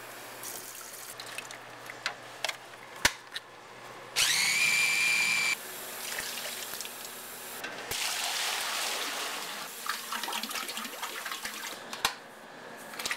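Kitchen sounds: a few sharp knocks and, about four seconds in, an electric motor whining up to speed and running steadily for about a second and a half before cutting off abruptly. This is followed by a stretch of hissing, splashing noise like running water.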